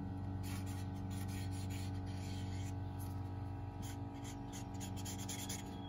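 Sharpie permanent marker drawing a line on a cardboard template, a series of short scratchy strokes, over a steady low hum.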